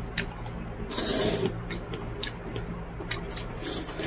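A man chewing a mouthful of naengmyeon (cold noodles), with two short hissing mouth sounds, about a second in and near the end, and a few faint clicks. A steady low hum runs underneath.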